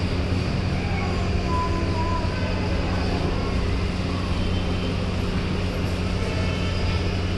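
A steady low mechanical hum, holding one pitch without change, over constant background noise.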